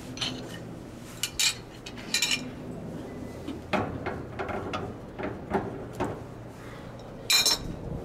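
Steel wrenches clinking and clanking against a brass service-valve fitting as an adjustable wrench and a second wrench are set onto an air conditioner's flare nut. There are several separate sharp metallic clinks with a short ring, the loudest near the end.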